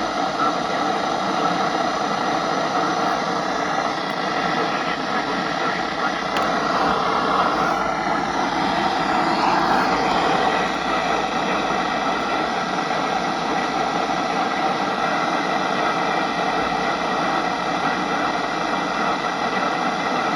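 Steady hiss of radio static from a weak broadcast signal, with no clear words coming through.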